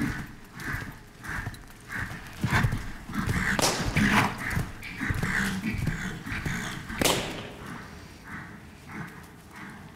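A horse cantering on the sand footing of an indoor arena, its hoofbeats about twice a second. Two louder, sharper thumps come about a third of the way in and about two-thirds of the way in.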